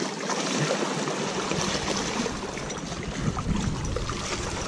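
Lake water lapping and splashing among shoreline rocks, with wind buffeting the microphone from about a second in.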